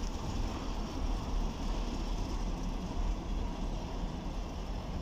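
Loaded container flatcars of a freight train rolling past during shunting: a steady low rumble of wheels on rails.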